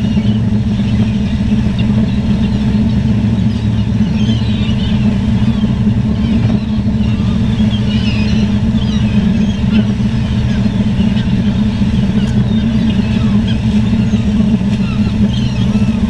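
A crowd of seagulls calling continuously over a steady, loud low motor drone.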